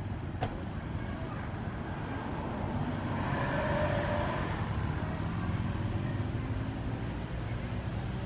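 Steady low background rumble of outdoor noise, with a single brief click about half a second in and a slight swell around the middle.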